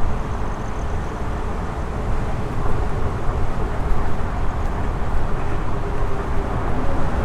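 Steady wind and road rumble while riding an electric unicycle, heavy in the low end.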